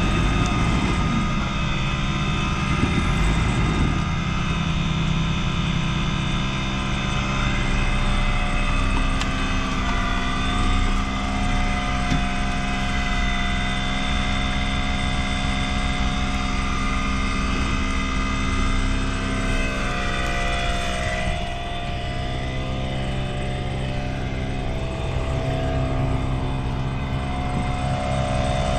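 Jeep Cherokee engine running steadily as it is driven slowly off-road, its pitch shifting a little about ten seconds in and again about twenty seconds in.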